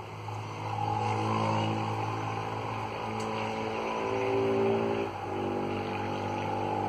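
A motor engine running steadily and growing louder, its pitch shifting down about five seconds in, like a vehicle going by.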